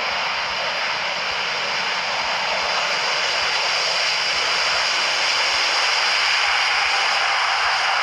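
Airbus A380 airliner landing, its four jet engines making a steady rushing jet noise that grows slightly louder over the seconds.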